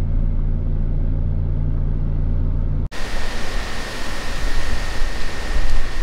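Steady low rumble of a vehicle on the move, heard from inside the cabin; about three seconds in it cuts off sharply to an even hiss with a thin, steady high whine.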